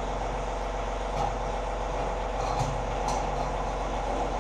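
John Deere tractor engine idling steadily, with a few light metal clinks as the pallet forks' spreader bar is handled on the floor.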